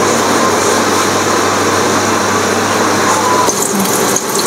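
A steady whir with a low hum, like an electric fan motor running, from the kitchen's electric cooking appliances. The sound changes and turns choppier about three and a half seconds in.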